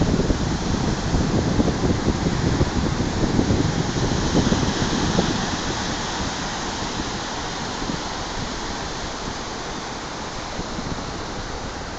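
Sea surf washing steadily at the shore, with wind buffeting the phone microphone as a gusty low rumble in the first few seconds that then eases off.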